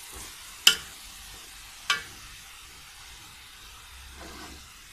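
Metal spoon stirring shredded vegetable and chicken spring roll filling as it cooks in a metal pot, over a steady faint sizzle. The spoon clanks sharply against the pot twice, a little over a second apart, near the start.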